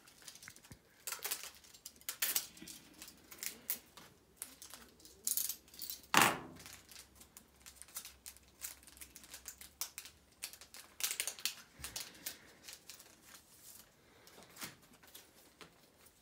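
Handling of plastic comic bags and a sheet of sticker seals: scattered light crinkling and clicking as a seal is peeled off its backing, with one louder knock about six seconds in.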